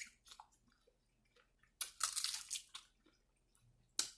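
A person chewing and crunching food close to the microphone, a burst of crunchy bites about two seconds in and a sharp click near the end.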